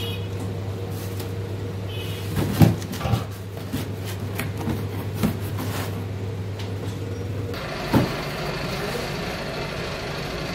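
Workshop machinery noise: a steady low hum with a few sharp knocks, the hum giving way to a hiss about three-quarters of the way through.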